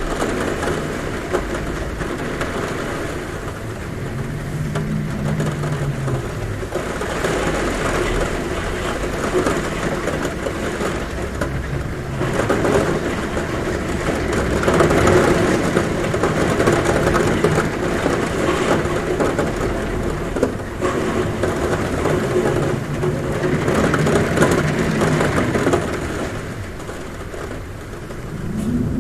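Heavy rain on a roof, swelling and easing in waves, with a low humming of wind at the window that comes and goes.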